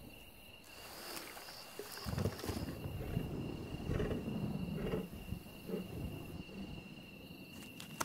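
Big cat growling in several low bouts, loudest from about two seconds in until about six seconds. A steady high insect trill runs underneath.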